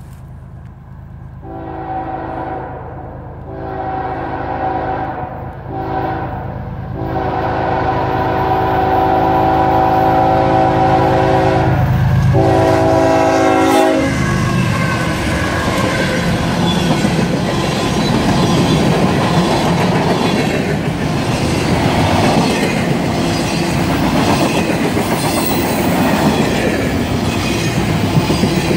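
A CSX freight train's diesel locomotive sounds its multi-tone air horn in the grade-crossing pattern: two long blasts, a short one, then a long one held and briefly broken. At about the halfway point the locomotives pass close by with a heavy diesel rumble. Container-laden intermodal well cars follow, rolling past with clattering wheels and steady rail noise.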